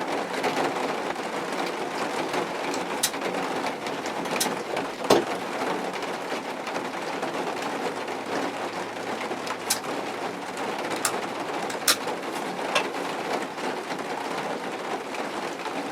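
Steady rain falling, with scattered sharp drip taps every second or two.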